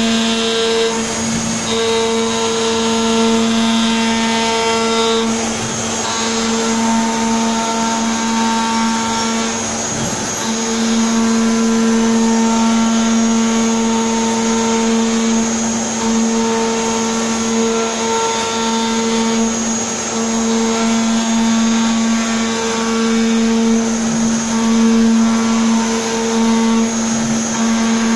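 CNC router spindle running steadily as it cuts grooves into a wood panel, with the dust extraction running. It is a constant machine whine with a hissing noise over it, and one of the whine's notes drops out briefly a few times.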